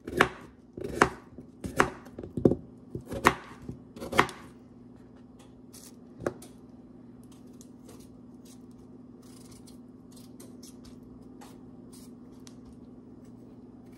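A kitchen knife chops a peeled potato into chunks on a cutting board: about six sharp knocks roughly a second apart, stopping about four seconds in. Faint scraping of a vegetable peeler on a potato follows over a low steady hum.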